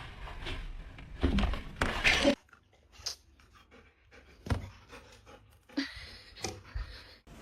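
A pet panting, with the loudest breaths about a second in, followed by a few short knocks or clicks.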